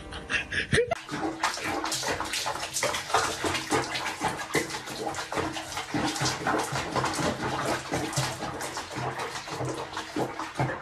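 Water splashing and running in a small plastic tub, dense and irregular from about a second in.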